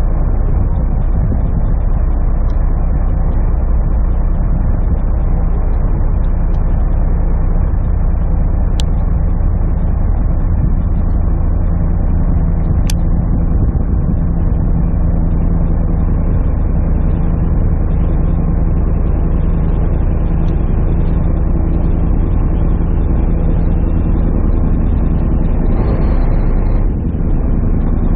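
Boat engine running steadily: a loud, even low rumble and hum. Two sharp clicks stand out, about nine seconds in and again about four seconds later.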